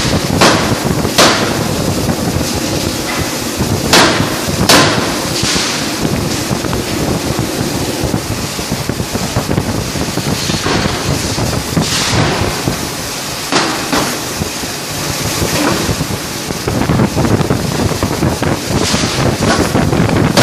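1-ton closed-die forging hammer striking a hot workpiece in the die: sharp blows, often in pairs a second or less apart, at uneven intervals of several seconds, over loud steady machine noise.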